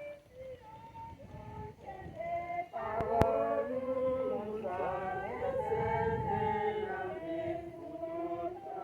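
A group of voices singing together, with one sharp knock about three seconds in.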